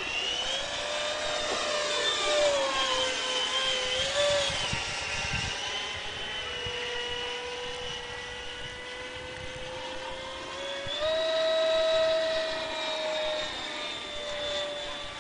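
Electric ducted fan of a model jet (a 90 mm Vasafan driven by a Typhoon 700-68 motor) whining steadily in flight. The pitch sways as the jet passes overhead and steps up about two-thirds of the way through, where it is loudest.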